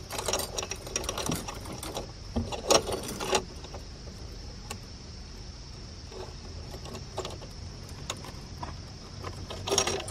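Metal chain fish stringer clinking and clicking as it is handled and clipped at the side of a metal canoe: a quick run of rattling clicks over the first few seconds, then scattered single clicks.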